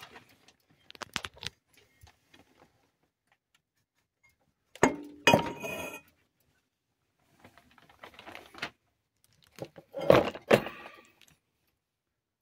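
Metal knocks and clinks as the parts of an old three-phase induction motor are handled, with its end cover worked off the rotor shaft and set down. They come in four short bursts, the loudest about five seconds in and another near ten seconds.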